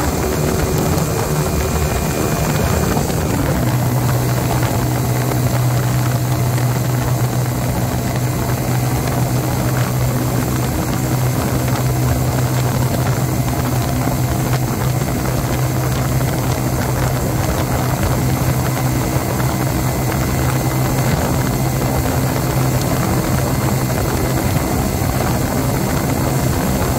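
Mutt Akita 125's single-cylinder engine running at road speed through a slash-cut exhaust repacked with glass fibre packing, mixed with heavy wind and road noise. The engine's pitch shifts about three seconds in, then holds as a steady hum.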